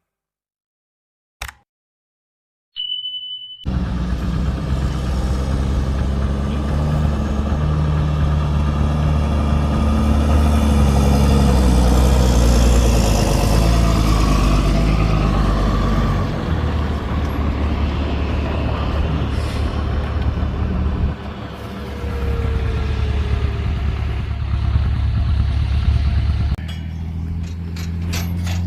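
Heavy diesel machinery running with a steady deep drone. It starts about three and a half seconds in, after near silence.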